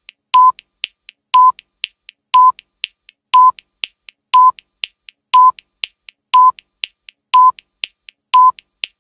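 Countdown timer sound effect: a short beep once a second, with fainter ticks between the beeps.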